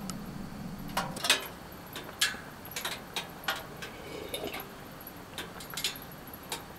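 Irregular light clicks and knocks, about a dozen, the loudest about a second in and just after two seconds.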